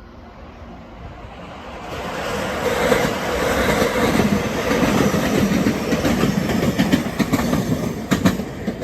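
A train passing over a level crossing, its wheels clattering over the rail joints. It builds up over the first couple of seconds and stays loud, with a few sharp clicks near the end.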